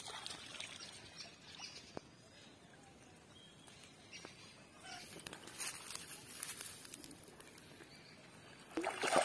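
Faint rural outdoor ambience with faint high chirping. Near the end a louder splashing starts, a wooden paddle dipping into the water.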